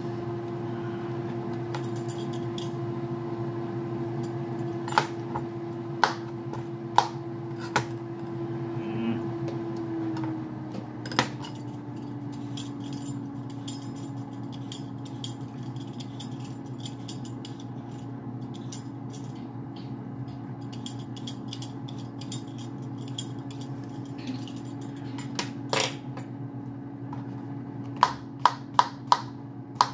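Kitchen knife slicing a cucumber on a plastic cutting board: a few scattered knocks, then a quick run of chops near the end, about two or three a second. Under it runs a steady appliance hum whose pitch drops slightly about ten seconds in.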